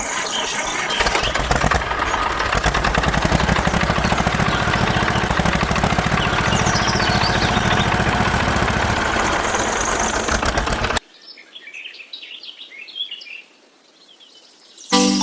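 A loud, steady mechanical running noise, with a few bird chirps over it, cuts off abruptly near the end, leaving faint birds chirping.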